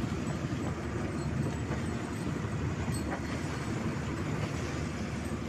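Steady low rumble of a running engine, even throughout.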